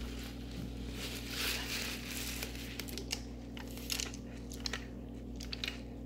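A foam cup being handled, with rustling and crinkling, then a few small clicks as it is drunk from, over a steady low hum.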